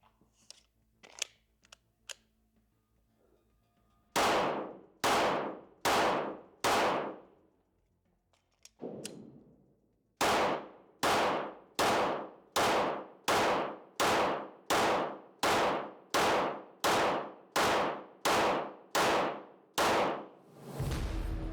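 Pistol shots fired singly at a steady pace, a little under one a second, each with a short echoing tail: a string of four, then after a pause a longer string of about a dozen. These are paced dot-return shots, the dot brought back onto the target between trigger presses. A few light clicks come before the first shot.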